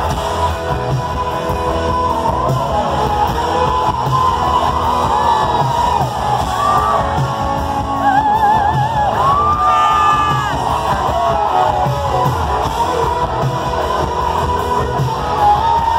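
Live rock band playing loud: drums and bass under electric guitars, with a wavering, bending lead melody in the middle.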